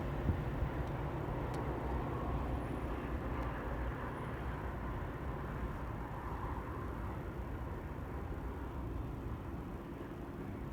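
Steady low rumble of a vehicle engine, slowly fading, with a couple of small knocks about half a second in.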